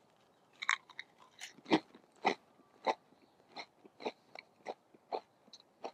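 Close-up chewing of a potato crisp topped with a tinned mussel in escabeche: a run of short, irregular crunches, about two or three a second, loudest in the first half and growing fainter.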